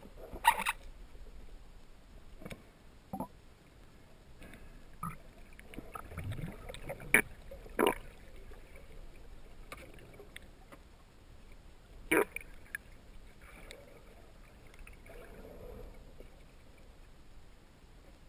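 River water sloshing and splashing, broken by scattered sharp knocks and splashes; the loudest come about half a second in, twice around seven to eight seconds, and about twelve seconds in.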